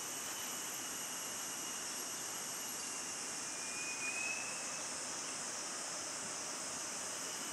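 Steady high-pitched drone of forest insects, with a brief faint whistled note about four seconds in.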